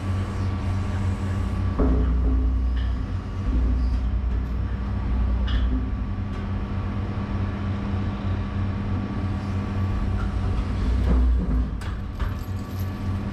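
Excavator engine running, heard from inside the operator's cab: a steady low drone that swells several times, about two seconds in, around four to six seconds and near eleven seconds, as the machine takes load holding and setting a steel shoring panel. A couple of faint clicks near the end.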